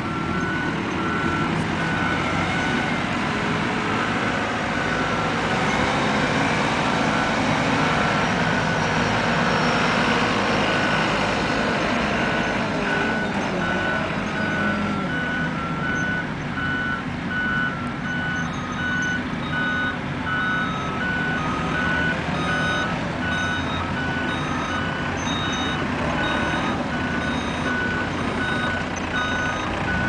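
Diesel engines of backhoe loaders running steadily, with back-up alarms beeping over them: two alarms at slightly different pitches, faint at first and beeping regularly through the second half.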